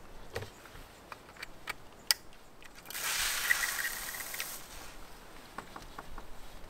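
Handheld spray nozzle on a coiled hose from a portable pressurised water tank, jetting water in one hissing spray of about a second and a half, starting about three seconds in. A few light clicks of the nozzle being handled come before it.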